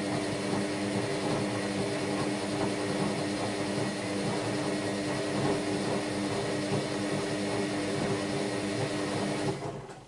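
AEG Lavamat Protex L72475FL washing machine tumbling its drum of wet, sudsy laundry in the wash phase: a steady motor hum under the slosh and rumble of clothes and water. The drum stops near the end and the sound drops away suddenly.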